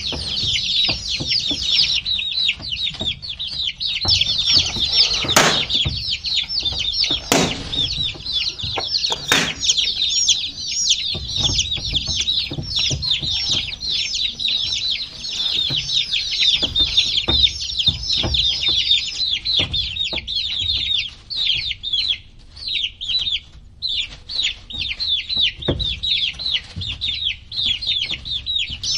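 A crowd of baby chicks peeping, many short high chirps overlapping without a break, thinning briefly near the end. A few sharp knocks stand out over them in the first third.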